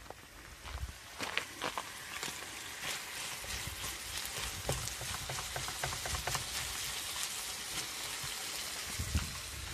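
Burger patties and chunks of meat sizzling in a nonstick frying pan on a portable single-burner camp stove: a steady hiss with many small crackles.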